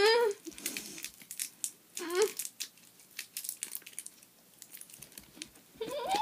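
Plastic wrappers of Warheads sour candies crinkling and tearing as they are picked open by hand: an irregular scatter of small crackles. Short wordless voice sounds break in at the start, about two seconds in and near the end.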